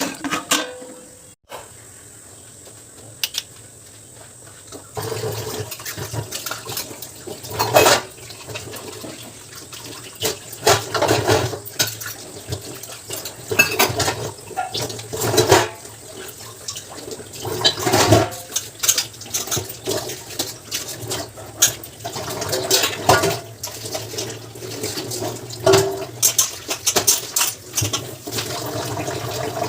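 Water running from a kitchen tap into a sink, starting about five seconds in, with irregular clattering and knocking of dishes and utensils being handled.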